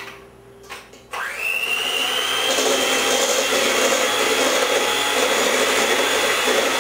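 Electric hand mixer switched on about a second in: its motor whines up in pitch, then runs steadily as the beaters mix the liquid key lime pie filling in a metal bowl.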